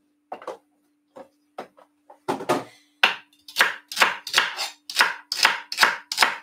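Knife chopping celery sticks on a wooden chopping board: a few scattered knocks, then from about three seconds in a steady run of cuts, about two to three a second.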